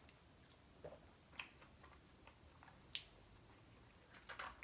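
Quiet eating: a few faint, sharp clicks of a utensil against a plastic food bowl, spread a second or so apart, with a small cluster near the end.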